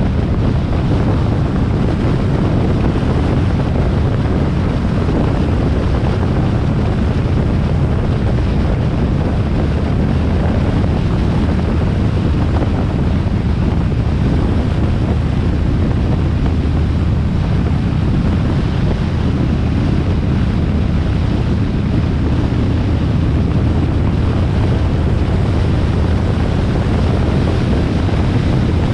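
Harley-Davidson Sportster XL1200R's air-cooled V-twin engine running at a steady highway cruise, a low rumble with no change in pitch, buried under heavy wind noise on the microphone.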